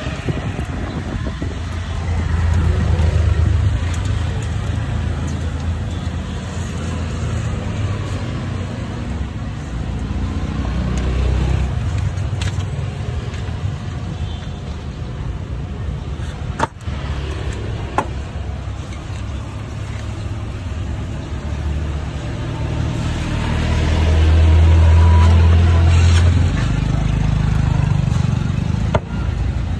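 Street background noise: a low rumble that swells near the start and again toward the end, with a few sharp clicks in the middle.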